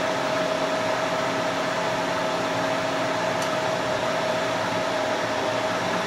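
Three-phase electric motor of a milling machine running steadily with its belts off, fed from single-phase 220 V through a converter: a steady whir with a constant whine.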